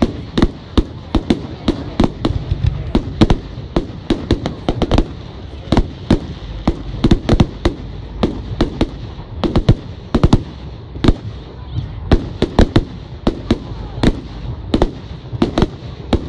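Fireworks display: aerial shells bursting in a rapid, irregular barrage, several sharp bangs a second over a continuous low rumble.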